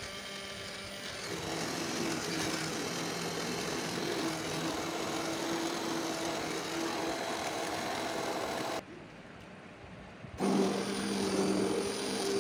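Electric immersion hand blender running in a pot of thick cooked lentils, pureeing them. It runs with a steady motor hum, cuts out for about a second and a half near the end, then starts again louder.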